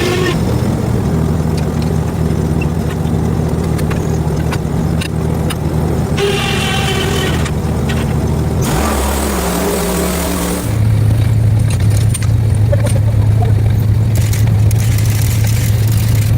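A small engine running steadily. About eleven seconds in its note drops lower and gets louder.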